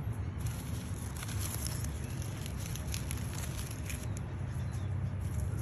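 Dry dead cyclamen leaves crackling and rustling as they are picked off the plants by hand, a scatter of small crisp clicks over a steady low background rumble.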